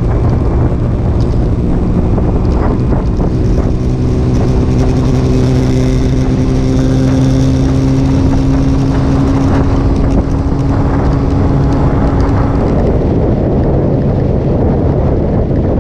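Motorcycle engine running at steady road speed under heavy wind noise on the camera microphone. The steady engine note drops away near the end, leaving mostly wind rush.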